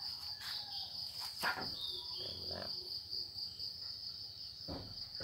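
Crickets trilling steadily in one continuous high-pitched note, with a few light knocks about half a second and a second and a half in.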